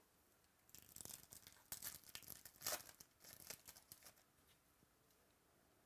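Crinkling and tearing of a trading-card pack wrapper, in a run of irregular rustles and crackles that stops about four seconds in.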